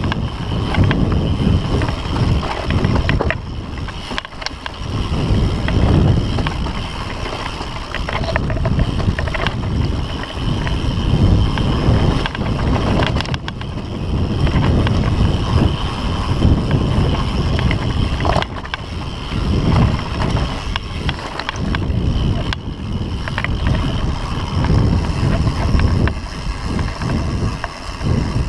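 Wind rushing and buffeting over the microphone as a mountain bike rolls along a dirt singletrack, with tyre rumble and scattered sharp clicks and rattles from the bike over bumps.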